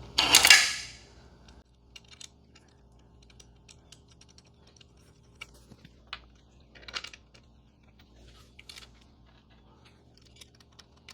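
A loud rustle lasting about a second and a half, then scattered light clicks of small metal hardware, washers and nuts, being handled and fitted onto the bolts of a motorcycle luggage rack.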